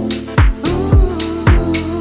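Afro-tech deep house music: deep kick drums that drop in pitch, under held chord tones, with a long sustained note coming in about two-thirds of a second in.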